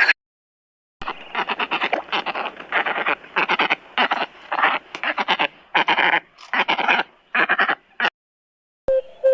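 African woolly-necked stork calling: a series of about a dozen short, harsh, rasping calls in quick succession over some seven seconds, starting about a second in.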